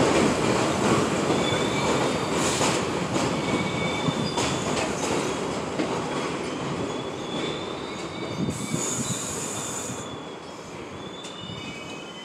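New York City subway train slowing to a stop at an elevated platform. Its wheels rumble and grow steadily quieter, with thin, high brake and wheel squeals throughout, a brief hiss about nine seconds in, and a cluster of squeals near the end.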